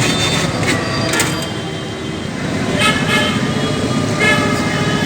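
Busy street traffic rumbling, with a vehicle horn honking twice, about three seconds in and again a second or so later.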